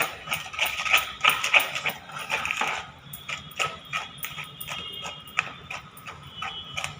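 Butter and powdered sugar being beaten by hand with a spatula in a bowl: quick rhythmic scraping and tapping, about three strokes a second, softer after about three seconds.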